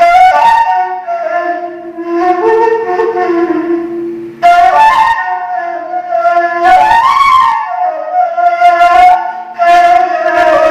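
Arabic ney (end-blown reed flute) improvising, unprocessed with no added effects. It enters at the start with a breathy attack, then plays phrases of held notes that bend slightly in pitch, with fresh breathy attacks at each new phrase.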